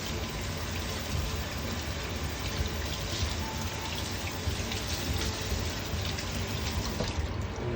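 Tap water running steadily, with small splashes, as a fish is rinsed clean.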